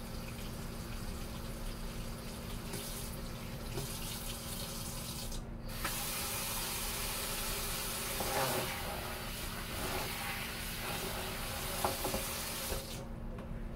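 Kitchen faucet running as potatoes are rinsed and rubbed by hand under the stream, with small knocks of handling. The splash grows brighter about six seconds in and the hiss drops off abruptly near the end as the tap is shut.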